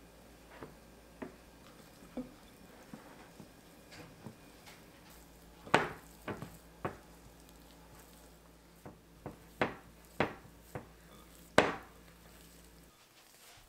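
Silicone spatula stirring and scraping thick apple cookie dough in a glass mixing bowl, with irregular clicks and knocks against the bowl's side. The loudest knocks come about six seconds in and near the end.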